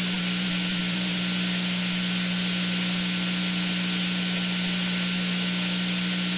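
Steady hiss with a constant low hum and a fainter higher tone, unchanging in level and pitch.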